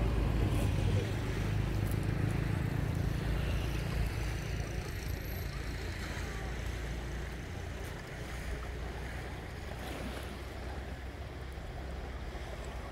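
Low hum of a boat engine, slowly fading, over the noise of wind and waves.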